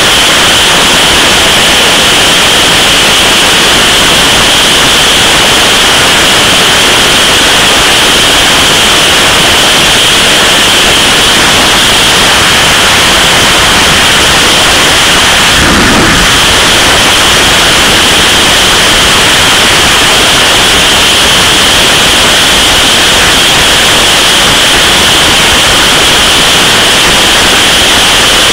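Loud, steady wind noise blasting over the microphone of a camera on a motorcycle at motorway speed, drowning out the engine. One brief low thump about halfway through.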